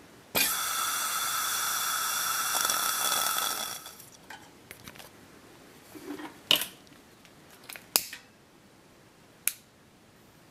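A steady hiss lasting about three seconds, then a few short, sharp metallic clicks from the parts of a Coleman Gold Bond 200A lantern being handled.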